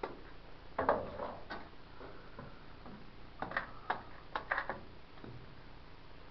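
Rock hammer tapping and chipping at a rock face: irregular sharp clicks and knocks, several in quick succession around the middle.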